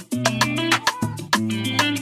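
Background music with a steady beat of sharp percussive hits over held bass notes.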